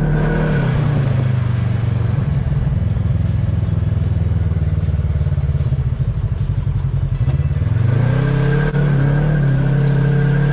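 Polaris RZR side-by-side's engine running as it drives over a rough dirt trail, heard from on board. The engine note drops about half a second in, runs lower and rougher, then rises again near the end.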